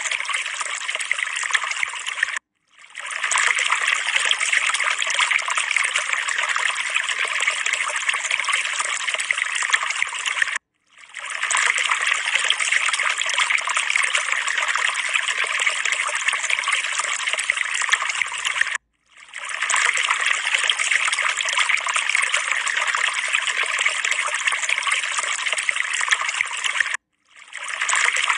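Steady trickling, running water, repeating in stretches of about eight seconds that cut off abruptly and fade back in after a brief silence, like a looped background track.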